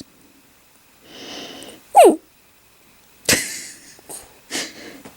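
Coton de Tulear dog making funny vocal noises: a soft breathy sound, then a short high call sliding down in pitch about two seconds in. A sharp breathy burst follows, then two smaller ones.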